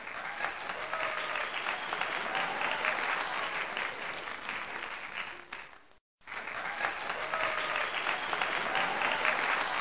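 A crowd clapping steadily, with faint voices underneath. The clapping fades out just before six seconds in, cuts to a moment of silence, then resumes.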